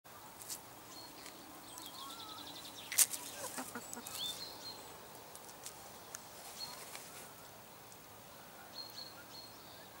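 Hens scratching and pecking in dry leaf litter and soil, giving scattered clicks and rustles, with a sharp click about three seconds in. Small birds chirp high and thin several times, including a short trill early on.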